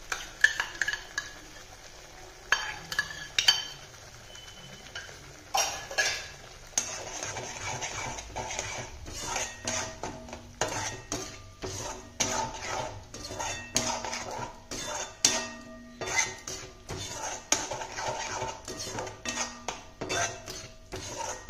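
Slotted metal spatula stirring thick masala paste in a kadhai, scraping and knocking against the pan. A few separate knocks come in the first six seconds, then a steady rhythm of scraping strokes.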